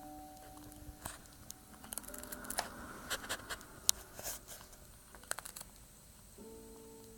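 Kitten chewing a Triscuit cracker, a run of irregular crisp crunches and crackles in the middle.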